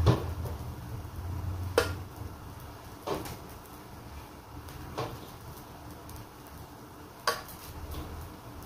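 Scattered light clinks and knocks of kitchen handling at an electric flatbread press while dough balls are set out on its plate, about five spread over several seconds. A low hum fades out in the first two seconds.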